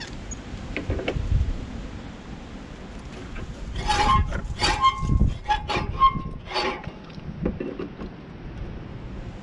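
Push reel mower's cutting reel turned by hand, its blades scraping and clicking against the bed bar with a metallic ring, several quick strokes starting about four seconds in. The bed bar has just been raised so that the reel has more friction against it. A dull knock or two comes about a second in, from the adjustment knob being worked with locking pliers.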